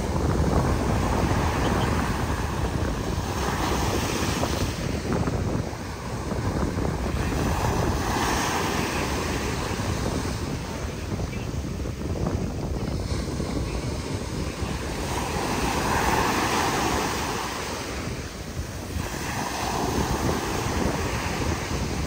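High surf breaking on the beach, a continuous rushing that swells with each wave about every four seconds, with wind buffeting the microphone.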